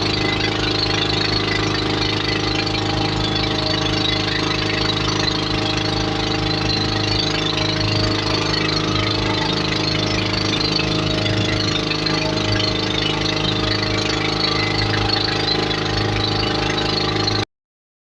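Motorboat engine running steadily at a constant pitch, then cutting off abruptly near the end.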